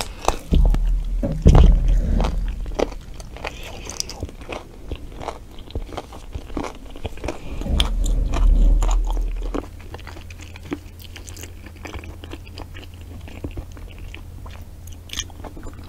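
Close-miked eating: biting, tearing and chewing meat off a whole cooked animal head, with many wet clicks and crunches. Heavy low thuds are loudest about a second and a half in and again around eight to nine seconds in.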